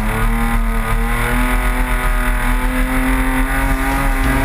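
Toyota Tacoma pickup's engine held at high revs while driving through snow, a steady note that rises slightly in pitch.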